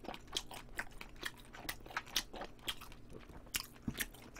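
A person chewing braised short ribs with the mouth open: faint, irregular wet clicks and lip smacks, two or three a second.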